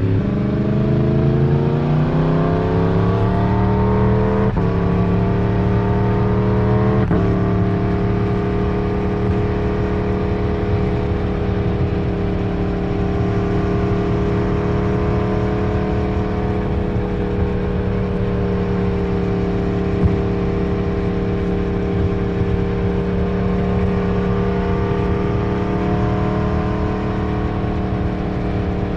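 Yamaha MT-10's crossplane inline-four (CP4) engine pulling under acceleration, its pitch rising, with two quick upshifts in the first seven seconds or so. It then holds a steady mid-range pull, swelling and easing a little.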